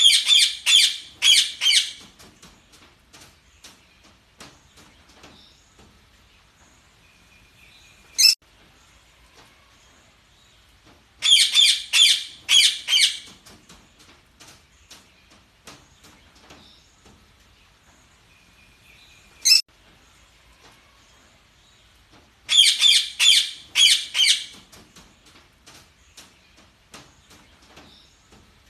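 Parakeets chirping: a loud flurry of rapid, high chirps about every eleven seconds, a single sharp chirp between flurries, and softer scattered chirps and ticks in between.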